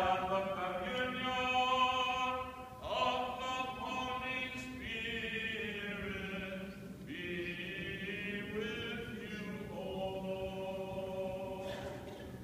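Byzantine chant of a Greek Orthodox service: voices hold long, drawn-out notes that move from pitch to pitch every second or two, over a steady low tone.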